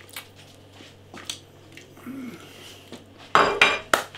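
A ceramic plate being handled and set down, with a few faint taps and then several sharp clattering knocks against a hard surface near the end.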